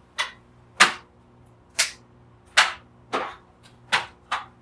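A cutting tool snipping through a USB-C cord in seven sharp, short cuts at irregular intervals of about half a second to a second.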